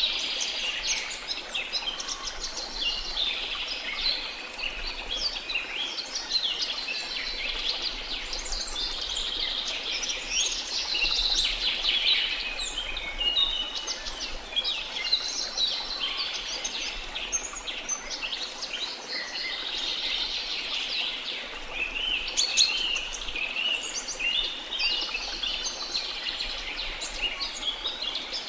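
A dense chorus of many birds chirping and calling over one another without pause, over a faint steady rushing noise.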